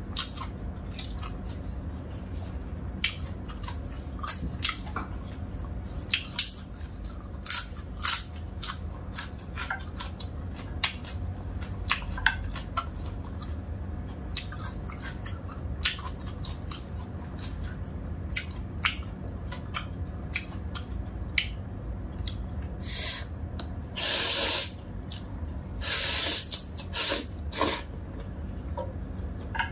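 A person eating dry instant noodles close to the microphone: chewing and wet mouth smacks heard as many short sharp clicks, with a few longer slurps about three quarters of the way through.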